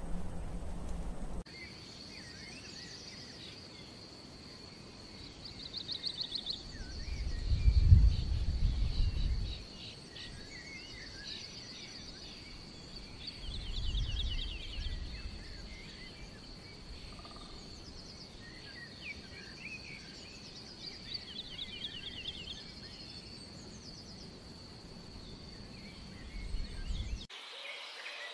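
A songbird singing short, rapid trilled phrases over a continuous high insect drone. Two low rumbling swells come and go, the louder one about eight seconds in.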